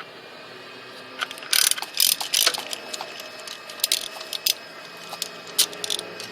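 3/8-inch drive ratchet with a 10 mm deep-well socket clicking in short, irregular bursts as it loosens small nuts, starting about a second in.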